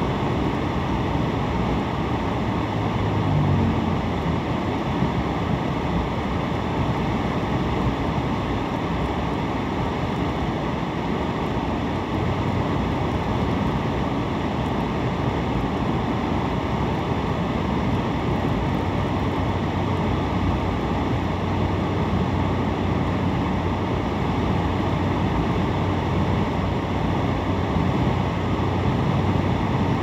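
Steady road noise inside a moving car's cabin: tyres on pavement and the engine's low hum, with no sudden sounds.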